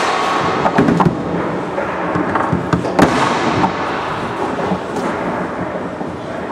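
Foosball play on a Roberto Sport table: sharp cracks of the hard ball struck by the plastic men and hitting the table walls, with rods clacking against the bumpers, the loudest crack about three seconds in, over a steady hum of hall noise.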